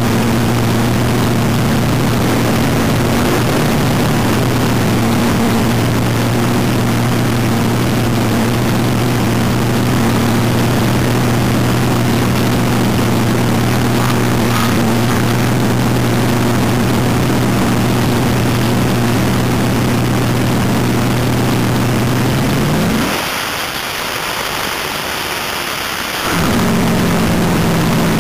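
Front-engine dragster's V8 idling steadily on board, one even low note. About 23 seconds in the engine note drops away to a hiss for about three seconds, then the engine comes back at a steady, slightly higher idle.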